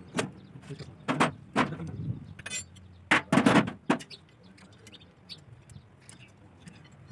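Spanners clinking and knocking on the bolts and metal housing of a Fiat 480 tractor's service plate as it is worked on: a few sharp metal knocks in the first two seconds, a quick cluster of them about three seconds in, then only faint light clicks.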